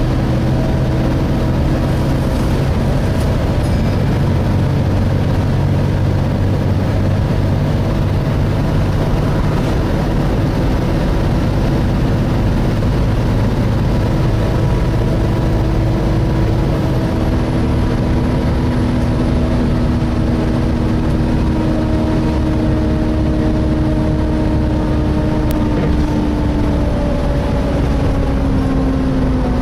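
Inside a Volvo B7TL double-decker bus on the move: the engine's radiator cooling fan whines steadily, like a hoover, over the engine and road noise. About halfway the low engine note changes, and near the end the whine sinks slightly in pitch.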